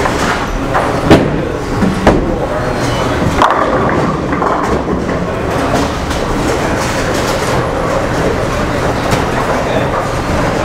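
Bowling alley din: balls rolling down the wooden lanes with a steady rumble, and a few sharp clatters of balls and pins in the first few seconds, over background chatter.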